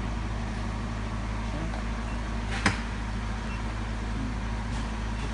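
Steady low hum of a portable picosecond laser machine running, with one sharp click about two and a half seconds in.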